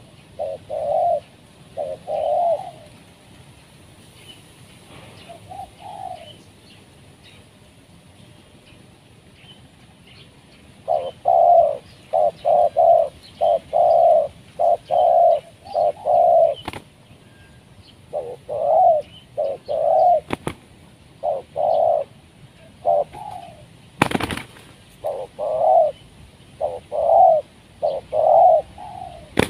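Spotted dove cooing in repeated rounded phrases: a few at the start, then a long, near-continuous run of coos from about eleven seconds on. One sharp knock cuts in about three-quarters of the way through.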